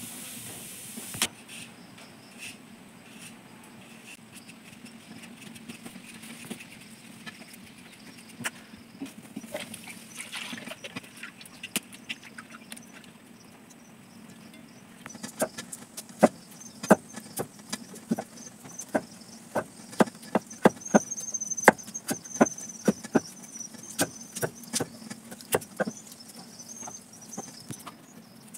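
Potatoes being hand-peeled and rinsed in a bowl of water, then a knife cutting potato pieces against a plate. The cutting makes a run of sharp clicks, about two a second, through the second half.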